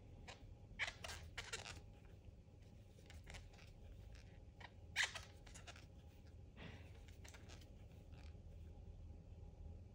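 Faint rustles and small clicks of a crochet hook being worked through soft yarn, with a sharper click about five seconds in, over a low room hum.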